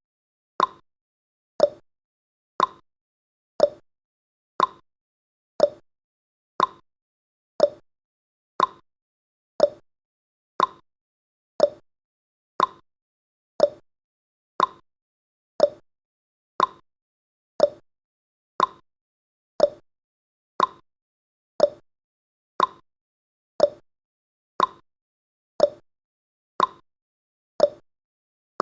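Clock ticking sound effect: sharp tick-tock clicks at one per second, alternating between a higher and a lower click, each dying away quickly, marking the seconds of a countdown timer.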